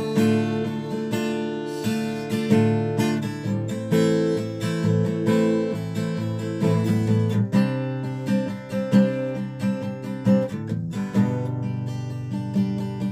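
Acoustic guitar strumming chords, an instrumental passage between sung lines of a worship song.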